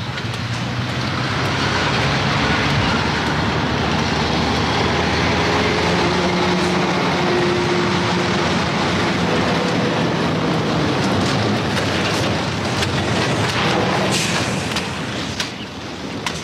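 Diesel semi-truck pulling a livestock trailer drives past, engine and tyres loud and steady after building up over the first two seconds. It fades in the last couple of seconds as the truck slows.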